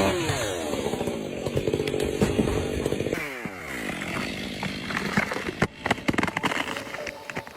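Chainsaw running under cut, its engine pitch dropping as the chain bites into the wood at the start and again about three seconds in, with scattered sharp clicks later.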